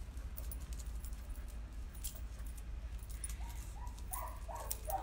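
A dog whining in a run of about five short calls from about three seconds in, over scattered light clicks and metallic jingling.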